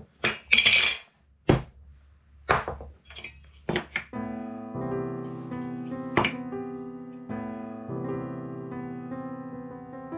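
A handful of sharp wooden knocks and clicks, one of them a heavy thunk of a wooden mallet striking the wood joint about a second and a half in. About four seconds in, background piano music starts and carries on.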